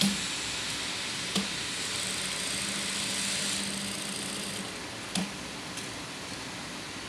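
Jack industrial lockstitch sewing machine stitching in spurts with a steady hum, with three sharp clicks as it stops and starts.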